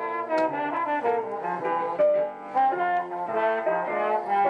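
Brass-led instrumental music playing from a record through the small speakers of a 1958 Dynavox portable stereo record player. The sound is thin in the bass.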